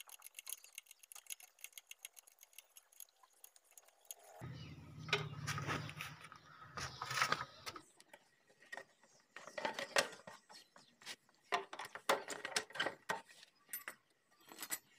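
Rapid light ticking, then clinks, clicks and knocks of metal and plastic parts as a Honda CD 70 motorcycle's battery and side panel are fitted. A low rumble of handling noise runs for about three seconds, starting just under halfway through.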